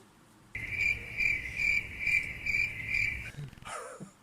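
Stock crickets-chirping sound effect: a steady chirping that pulses about twice a second, starting about half a second in and cutting off abruptly after about three seconds.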